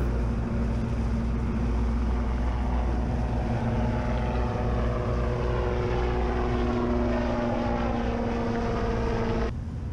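Floatplane's propeller engine running with a steady, even drone that drops away abruptly near the end.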